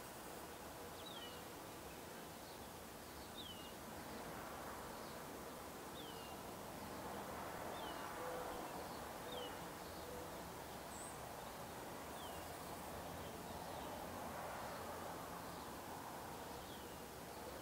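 Gambel's quail chicks peeping faintly: short high notes that slur downward, one every second or two. Under them is a steady background hiss, with a faint low hoot now and then.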